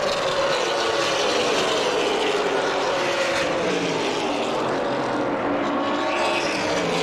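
A field of Super Late Model stock cars racing on a paved short oval, several V8 engines droning together at full race speed. Their overlapping engine notes slowly sink in pitch, then climb again near the end as the cars come through the turns.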